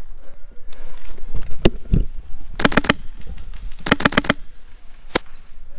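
Airsoft rifle firing: a single shot, then two quick bursts of four or five shots each, about a second apart, and a last single shot near the end.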